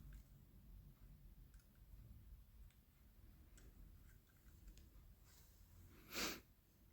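Near silence with faint scattered ticks from a chrome paint pen's fine nib working on a model fire engine, and one short soft rustle about six seconds in.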